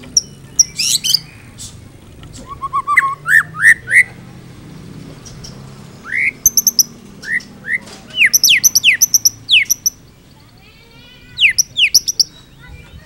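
White-rumped shama (murai batu) singing: loud, varied phrases of rising notes, steep falling whistles and rapid high chips, with short pauses between phrases. Its song is packed with mimicked fill phrases ("full isian").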